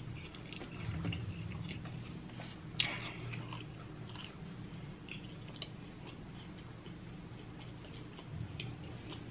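Close-miked chewing and lip-smacking of creamy shrimp alfredo pasta: soft wet mouth clicks, with one sharper click about three seconds in, over a low steady hum.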